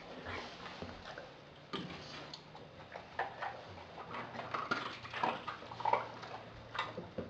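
A pit bull, German shepherd and chow chow mix dog eating raw food from a glass dish, making irregular wet smacks and clicks of its mouth.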